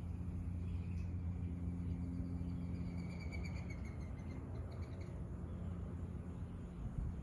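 Lakeside ambience over a steady low hum. From about a second in to about five seconds, a faint, thin, high animal call sounds, a slightly falling tone that breaks into a fast trill near its end, from a bird or insect in the vegetation.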